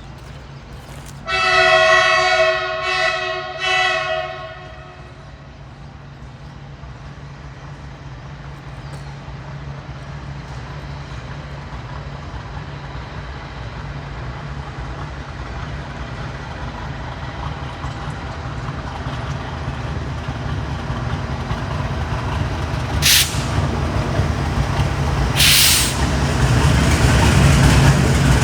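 An Indian Railways train's horn sounds near the start, a chord of several steady tones in three blasts, the first the longest. Then the rumble of the approaching train builds steadily louder, with two short sharp hisses a few seconds before the end.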